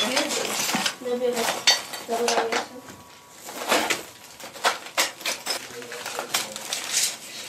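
Rubble and broken shards clinking and crunching as people walk over and rummage through the debris of a wrecked room: an irregular run of sharp clinks and scrapes.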